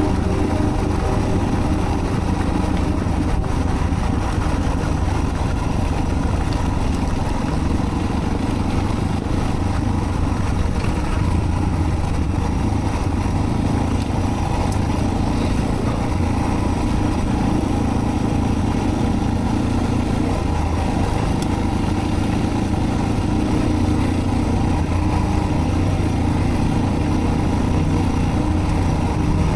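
Suzuki DR650's single-cylinder four-stroke engine running at a steady pace while the motorcycle is ridden, with road and wind noise.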